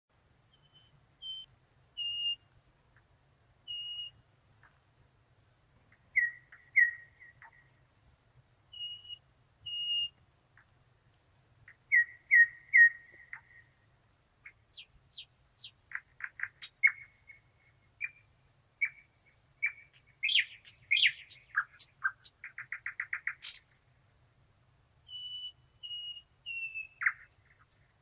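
Thrush nightingale singing a varied song made of clear whistled notes, repeated doubled notes and high sharp notes, with a fast rattling run of notes a few seconds before the end.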